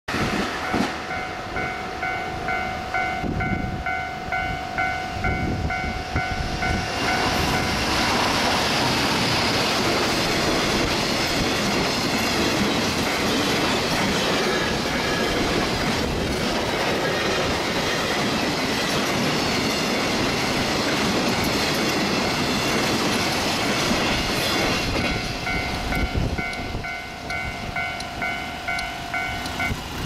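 Japanese level-crossing warning alarm ringing in an even clang, about two rings a second, while a passing commuter train rumbles and clatters close by. About seven seconds in, a long container freight train hauled by an EF200 electric locomotive passes, its wagon wheels clattering over the rail joints loudly enough to drown the alarm. Near the end, as the train draws away, the alarm rings out clearly again.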